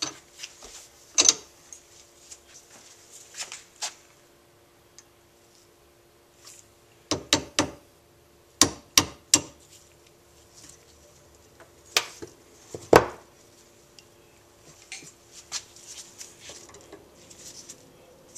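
Sharp metallic snaps of a spring-loaded center punch driving the float pivot pin out of a Honda Z50A carburetor held in a vise. The snaps come singly and in two quick groups of three, with light tool clinks and rubbing between them.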